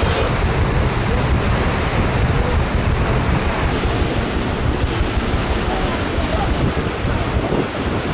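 Steady wash of a steam paddle boat under way: water rushing and churning along the hull, with wind buffeting the microphone.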